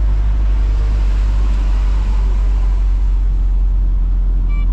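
Steady low engine and road rumble heard from inside a delivery van's cab, with tyre noise on a wet road.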